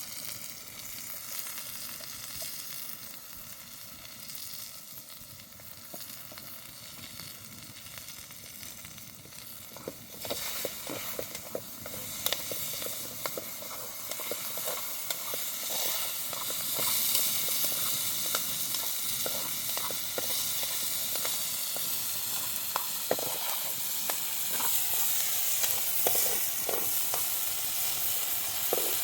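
Food frying in hot oil: a steady sizzle, turning louder with many sharp crackles and spatters from about ten seconds in.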